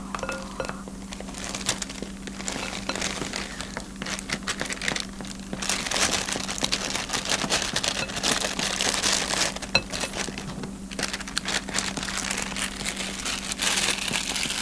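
Thin plastic cake-mix bag crinkling and rustling as it is squeezed and shaken to empty dry chocolate cake mix into a glass bowl, loudest through the middle stretch.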